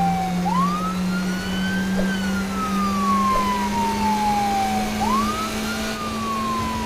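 Police siren wailing: a tone that rises quickly about half a second in, slides slowly down over several seconds, then rises and falls again, over a steady low hum.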